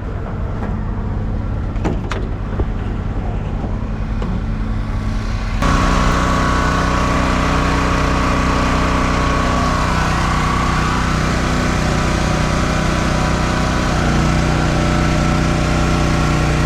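Small portable generator engine running steadily. About six seconds in, the sound suddenly gets louder and fuller and then stays steady.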